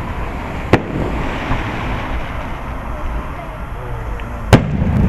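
Aerial firework shells bursting, with two sharp bangs about four seconds apart over a continuous rumble and crackle of other bursts.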